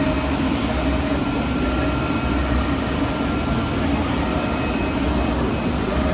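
Fabric cutting machine running steadily: a constant whirring hum over a low rumble, with faint higher tones coming and going.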